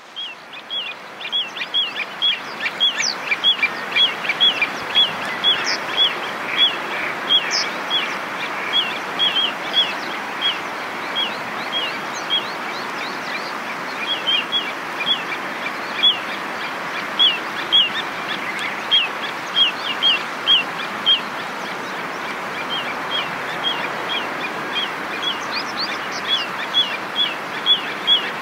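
Little ringed plover calling: a long series of short, high, downward-slurred notes at about two a second, broken by a couple of pauses, over a steady background hiss.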